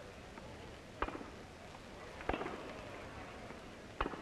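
A tennis ball struck by rackets during a rally: three sharp pocks, about a second and a half apart, over the steady hiss of an old film soundtrack.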